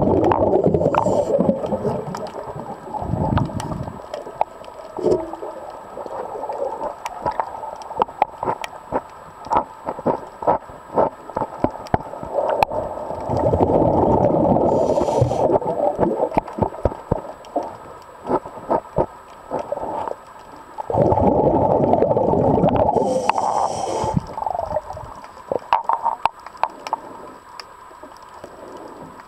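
Water noise picked up underwater by a camera: scattered crackling clicks throughout, with a few bursts of bubbling a few seconds long.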